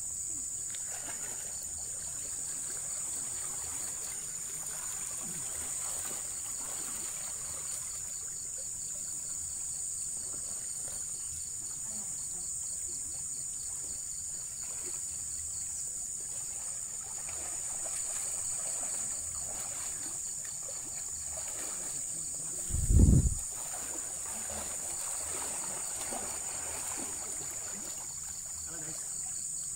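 Steady, high-pitched insect chorus from the vegetation, with faint splashing of people wading through a shallow, muddy pool. A brief low thump about 23 seconds in is the loudest sound.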